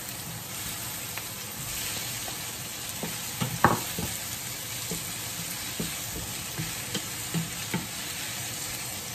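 Sliced sausage with onion and garlic sizzling in a frying pan, stirred with a wooden spatula that knocks and scrapes against the pan now and then; one louder knock about three and a half seconds in.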